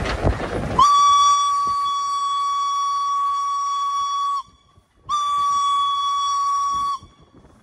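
Steam whistle of steam locomotive B 5112: a rush of hissing steam, then a long steady blast of about three and a half seconds, a brief break, and a second blast of about two seconds on the same single note.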